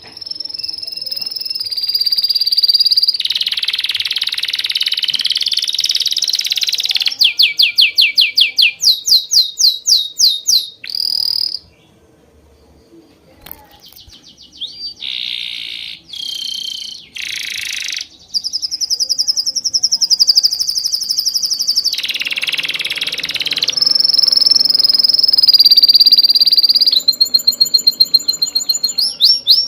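A songbird singing: long high whistled notes, rapid trills of repeated chirps, and harsh buzzy phrases, with a pause of a couple of seconds near the middle.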